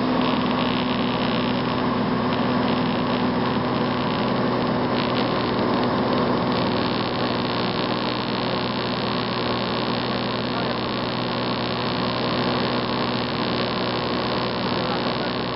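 Light aircraft's engine and propeller droning steadily in cruise, heard inside the cabin.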